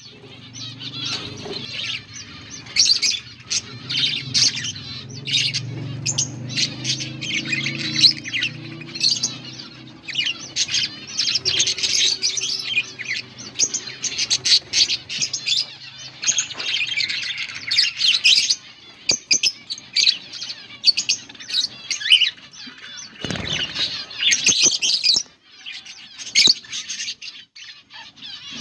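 A colony of budgerigars chirping and chattering continuously, many birds calling over one another in quick, high-pitched warbles.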